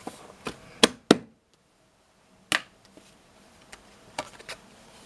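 Playing cards handled on a windowsill: a few sharp clicks and taps as cards are squared, lifted and set down. The two loudest come about a second in, and the sound cuts out completely for about a second just after them.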